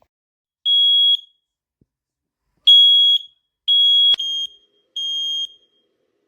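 Smoke alarm sounding: repeated high-pitched beeps, each about half a second long, all on one steady pitch. A sharp click comes about four seconds in, and the beeps after it are quieter.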